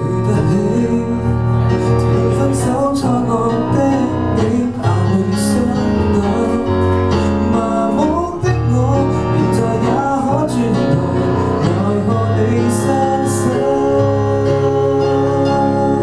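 Live male vocal singing a Cantonese pop song into a handheld microphone, over sustained keyboard chords.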